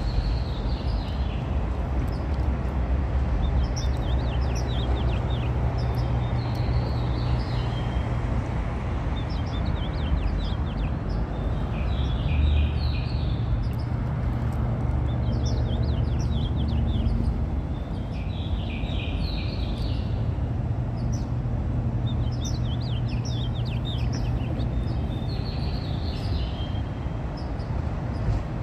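Steady low rumble of a long freight train of autorack cars rolling past. Over it a songbird repeats the same short song about every three seconds, each a run of quick high notes ending in a buzzy trill.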